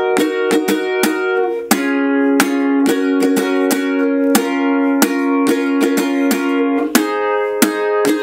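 Ukulele with a capo on the first fret strummed in a steady down-up pattern through a chord progression of D minor, C, F, A minor and G, the chord changing every few seconds.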